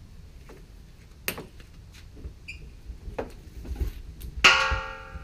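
Metal objects being handled: a few light knocks and clicks, then a sharp metallic clang about four and a half seconds in that rings on briefly with a bell-like tone before fading.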